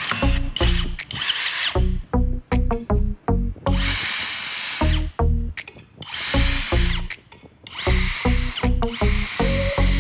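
Power tool running in bursts of a second or so, each with a steady high whine, during the sharpening of a step drill bit. Background music with a strong beat plays underneath.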